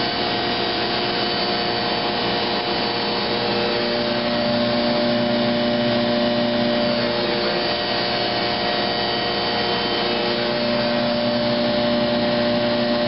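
Rietschle air compressor and Gast vacuum blower of an air sparge / soil vapor extraction system running steadily together: an even, loud whooshing drone with a steady hum.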